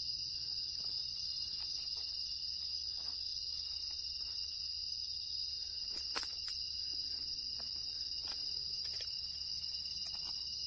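Crickets singing in a continuous high-pitched chorus, with a second, fainter steady tone a little lower. A few faint ticks and rustles sound over it, the sharpest about six seconds in.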